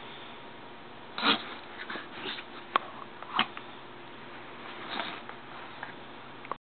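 Yorkshire terrier sniffing and snuffling in several short, separate bursts as he rolls in his bed, the loudest about a second in, with a sharp little click near the middle.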